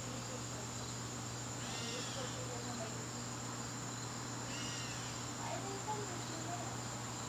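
Crickets chirping in a continuous high trill over a low steady hum. A fainter, separate call repeats about every three seconds.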